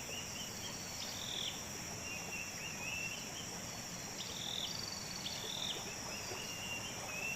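Steady high-pitched insect drone, with short chirping calls repeating about once every second or two.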